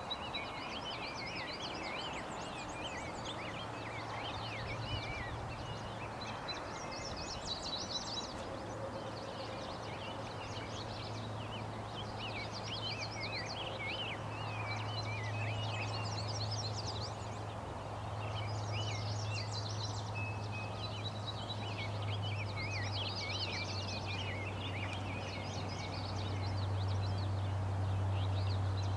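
Wild birds singing and chirping in a dense, overlapping chorus, with a steady low hum that sets in a few seconds in and grows louder toward the end.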